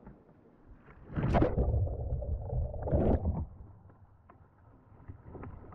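Sea water splashing and sloshing around a kayak for about two seconds, with a sharp splash at the start and another near the end.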